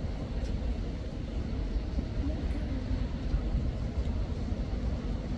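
Steady low outdoor rumble, with no distinct event standing out.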